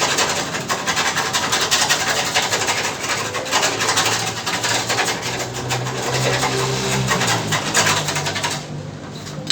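Sanding on the car's fender bodywork, a fast run of rasping, rubbing strokes that stops just before the end.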